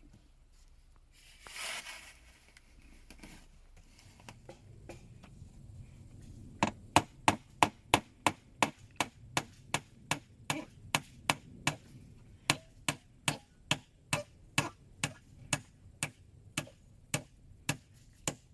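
Hammer driving nails into wood: a few light taps, then from about six seconds in a steady run of sharp blows, two or three a second.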